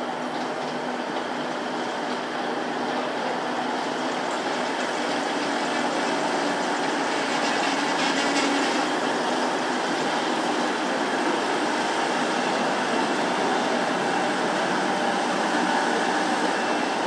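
A Class 185 diesel multiple unit running past at close range, a steady rumble of engine and wheels on the rails with a low hum under it. It grows a little louder over the first half, then holds.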